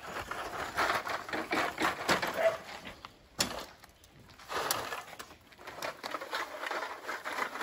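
Rustling and knocking of full sacks being handled at a wheelbarrow and lifted into a pickup bed, in irregular bursts with a quieter pause partway through.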